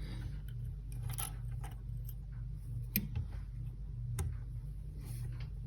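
Small scattered clicks and taps of a faucet's rubber seat, spring and metal Allen key being handled, the sharpest about three seconds in, over a steady low hum.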